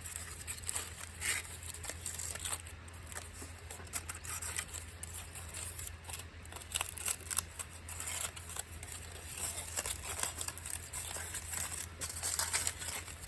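Scattered soft crinkling and small clicks as a roasted sweet potato is taken out of the bonfire and unwrapped, over a steady low hum.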